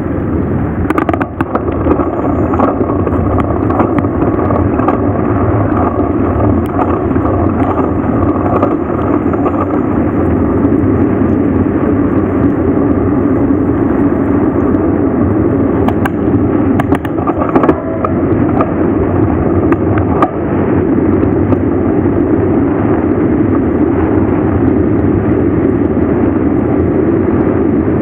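Steady rushing wind and road noise from a mountain bike coasting downhill, with a few sharp clicks.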